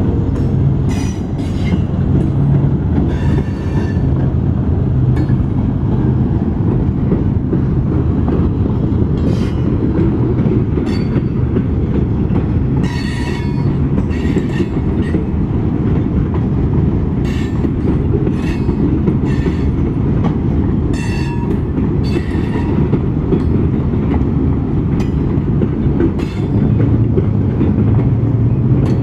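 A Valdosta Railway train rolling past: a steady low rumble of the locomotive and cars, with irregular clacks of wheels over the rail joints.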